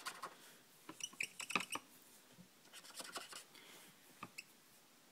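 Faint scratching of a blender pen's tip stroking over stamped cardstock while colouring, in short irregular strokes.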